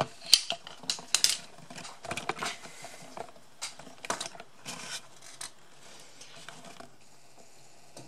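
Handling noise: irregular clicks and light knocks of hard objects being moved about on a workbench. They are densest in the first couple of seconds and die away by about seven seconds in.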